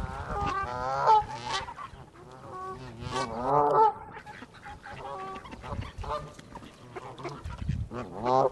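Flock of Canada geese honking repeatedly in overlapping bursts, the loudest calls about a second in and again past the middle, an alarm reaction to a dog nearby.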